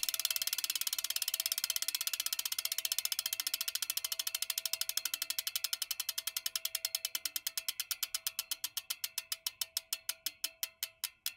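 Road bike's rear freewheel hub ticking as the spinning wheel coasts down, the pawl clicks slowing steadily from a fast buzz to a few clicks a second.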